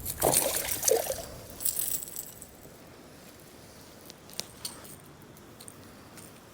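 Water splashing and trickling over the first couple of seconds, then a few faint clicks and taps.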